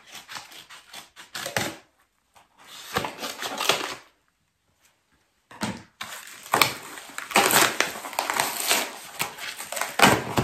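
Brown kraft-paper parcel being torn open and handled: crackling paper and crinkling plastic wrap in uneven bursts, stopping twice.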